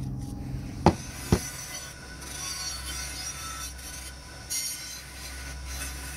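Two sharp knocks about a second in, then a bench-mounted wire wheel running with a steady motor hum while a cast-iron juicer part is pressed against it, brushing off rust down to bare metal.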